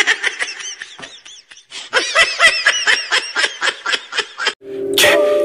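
A man's high-pitched, manic laughter: quick repeated "ha" bursts that fade out, then a second, longer run. Music comes in near the end.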